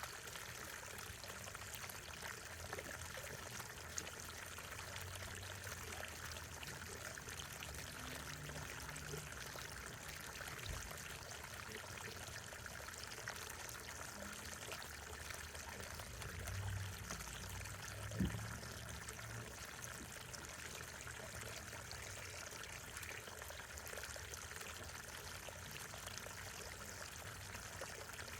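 Water pouring and trickling steadily into a garden fountain's basin, with one brief knock partway through.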